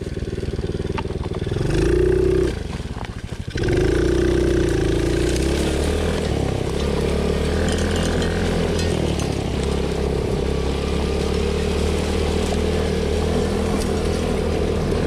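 Coolster 3050C youth ATV's 110cc single-cylinder four-stroke engine running under throttle while riding: it revs up about two seconds in, eases off for a moment near three seconds, then holds a steady pitch.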